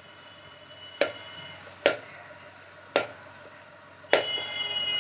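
Kitchen knife chopping boiled potatoes on a plastic chopping board: four sharp taps of the blade on the board, about a second apart. The last tap runs into about a second of a louder high-pitched sound near the end.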